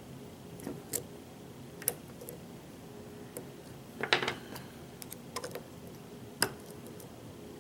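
Steel lock pick and tension bar working the pins of a pin-tumbler challenge lock: scattered sharp metal clicks, with a quick cluster of them about four seconds in.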